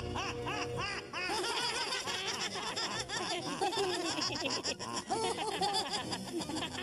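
Several people laughing heartily together. One voice starts with a quick, even run of ha-ha-ha, about four a second, then more voices join in and overlap.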